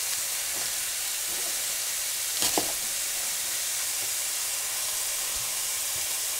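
Beef chunks searing in oil in a stainless steel skillet, giving a steady sizzle, with a single short knock about two and a half seconds in.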